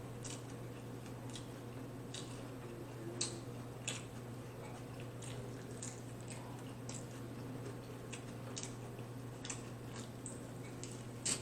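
Close-miked chewing of steak tacos: wet mouth smacks and squishes at irregular intervals, with a couple of sharper ones about three and four seconds in, over a steady low hum.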